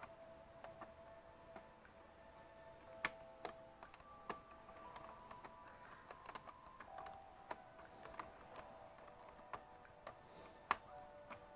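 Scattered small clicks and taps of laptop case parts being handled and pried during disassembly, irregular and a few seconds apart, over faint held background tones.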